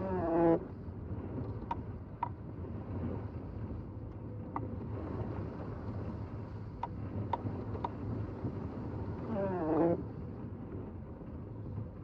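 Car driving on a snowy road, heard from inside: a steady low rumble of engine and tyres. A windshield wiper squeaks across the glass at the start and again about nine and a half seconds in, each squeak falling in pitch. A few faint ticks sound in between.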